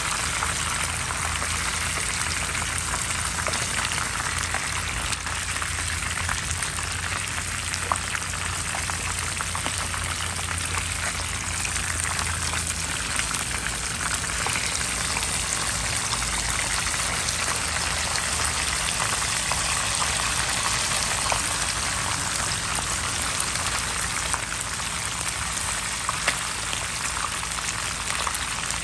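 Red snapper pieces frying in hot oil in a pan: a steady sizzle with scattered crackles and pops.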